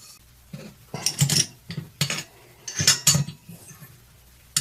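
Metal tools clinking and scraping: a small wrench working on an Allen key to tighten the cylinder bolts of a small two-stroke engine, in about three short bursts.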